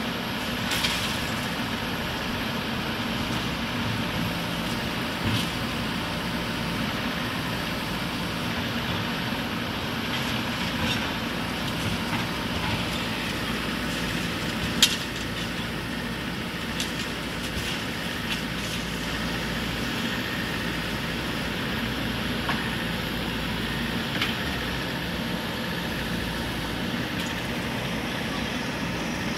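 JCB 3DX backhoe loader's diesel engine running steadily under load as its backhoe arm works demolition rubble, with occasional knocks from broken concrete and brick. One sharp bang about halfway through is the loudest sound.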